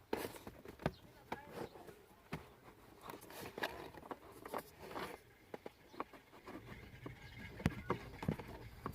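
Irregular clicks and knocks of plastic trim and filter-housing parts being handled and unclipped during a car cabin air filter change.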